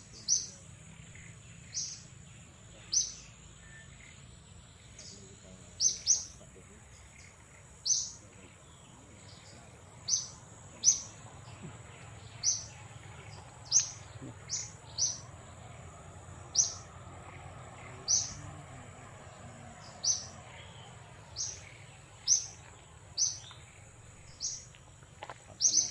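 Short, sharp high-pitched bird chirps repeating irregularly, one every second or two, over the steady high drone of insects.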